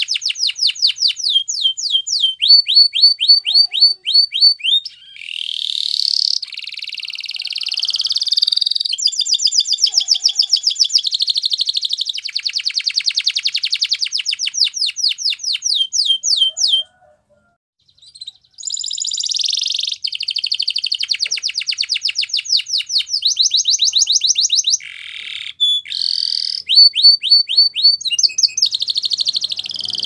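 Domestic canary singing: fast trills of rapidly repeated notes, phrase after phrase, some notes sliding up or down in pitch. The song breaks off briefly a little past the middle, then resumes.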